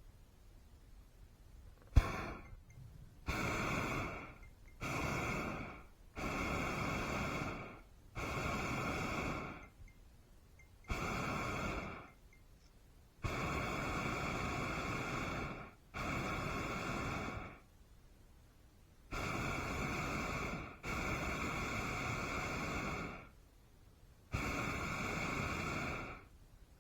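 Hot air balloon propane burner firing in a series of blasts, about a dozen, each one to two and a half seconds long with short gaps between them. A sharp click comes as the first blast opens.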